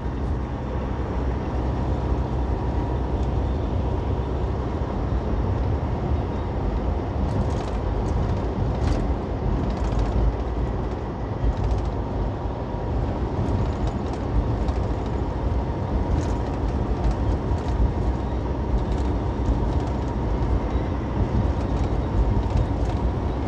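Steady engine and road noise of a semi-truck heard from inside the cab while driving, with a low engine drone and a few faint clicks or rattles about a third of the way in.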